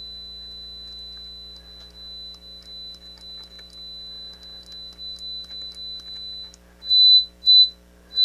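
A faint steady high-pitched electronic tone with light ticking over it, then three loud short beeps at the same pitch near the end.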